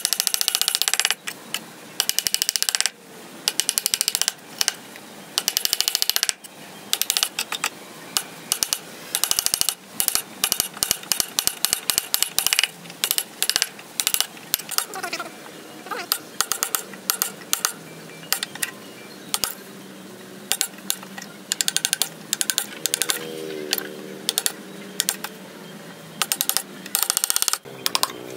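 Hand chisel paring into hardwood end grain and along a marked line: bursts of rapid, sharp crunching clicks as the blade slices through the wood fibres, with short pauses between strokes.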